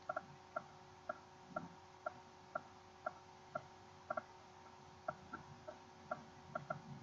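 Faint, regular ticking, about two ticks a second, over a faint steady hum.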